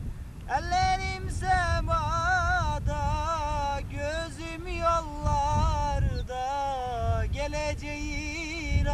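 A man singing unaccompanied in long, wavering, ornamented held notes that break briefly about once a second. A low wind rumble on the microphone runs underneath.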